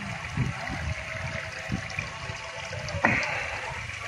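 Water running steadily into a fishing pond, with a sudden louder noise about three seconds in.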